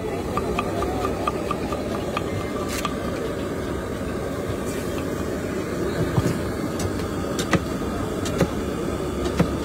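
Steady street noise of motor vehicle engines running, with a few sharp clicks in the second half.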